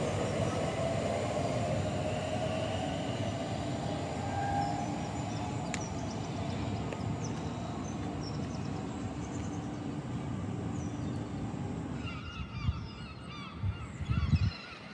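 Elizabeth line Class 345 electric train pulling away from the platform: a rising whine from its electric traction motors fades into a steady rumble as it moves off. About twelve seconds in the sound changes abruptly to birds chirping, with a few dull low thumps.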